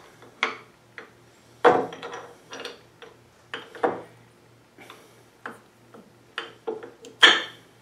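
Cast-iron parts of a South Bend lathe's compound base knocking and clicking against the cross slide as it is set in place and turned by hand: irregular metal-on-metal clinks and clunks, the sharpest about two seconds in and again near the end.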